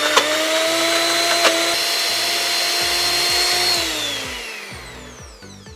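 Electric mixer grinder running at full speed, blending soft fresh paneer into a smooth paste, with a steady high motor whine. About four seconds in it is switched off and the whine falls in pitch and fades as the motor spins down.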